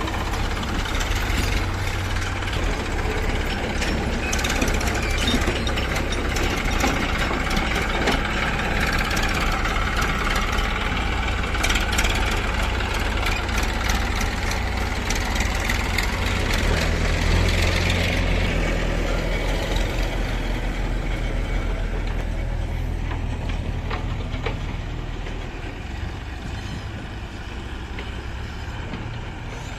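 Heavy vehicle engine running steadily, with many small clicks and knocks over it, growing quieter over the last several seconds.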